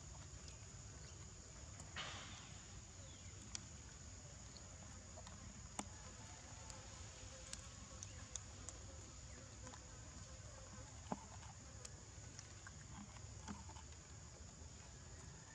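Faint forest ambience: a steady, thin, high insect drone over a low rumble. There is a brief rustle about two seconds in and a few soft clicks scattered through.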